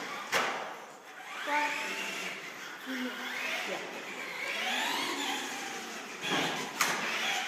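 Traxxas Grave Digger 1/10 RC monster truck's electric motor whining, rising and falling in pitch as the truck speeds up and slows down. A sharp knock comes about half a second in and another near the end.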